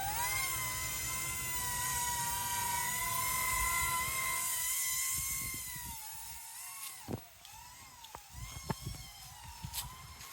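Small SYMA toy RC helicopter's electric rotor motors whining at a steady high pitch, with a brief dip in pitch at the start. The whine fades and wavers just past halfway, and a few light clicks and knocks follow.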